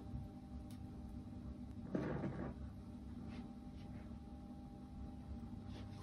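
Quiet room tone with a steady low hum, broken about two seconds in by a brief muffled noise lasting about half a second, and a few faint clicks.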